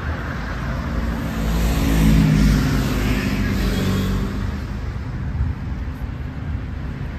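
A car driving past on the street, its engine and tyre noise swelling to a peak about two seconds in and fading away by about four seconds, over steady traffic noise.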